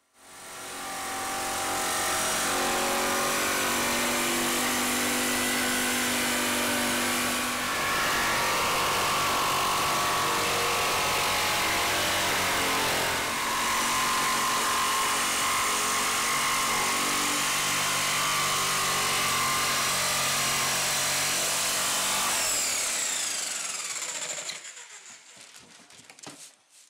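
Jigsaw cutting through plywood, its motor running steadily with a buzzing, shifting whine. Near the end the motor winds down with a falling whine and the sound dies away.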